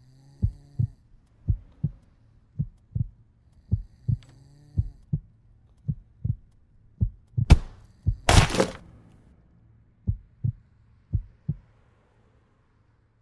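Heartbeat sound effect: low double beats about once a second, over a faint low drone. About seven and a half seconds in, a sharp hit and a loud burst of noise cut across it, and the heartbeat stops near the end.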